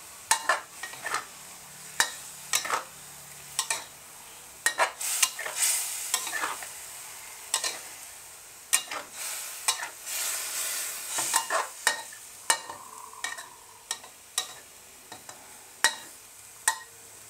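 Metal ladle stirring and scraping in a steel wok: irregular metal-on-metal clinks about one or two a second over the sizzle of simmering curry, which swells twice.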